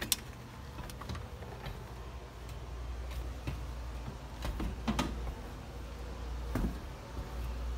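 Footsteps on a plywood subfloor: a handful of irregular knocks and taps, the loudest about five seconds in, over a low steady rumble.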